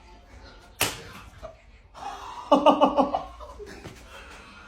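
A single sharp slap about a second in, followed a moment later by a short burst of laughter in quick pulses.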